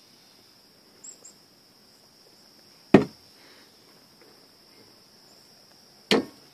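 Two sharp knocks, about three seconds in and near the end, over a steady high insect trill.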